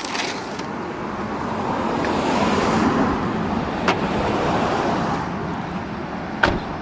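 Road vehicle noise: a rushing that swells to a peak about three seconds in and then eases off, with a sharp click about four seconds in and a louder one near the end.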